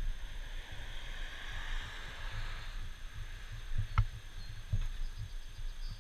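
Wind buffeting the microphone in uneven gusts over a faint steady rush of river water, with one sharp click about four seconds in.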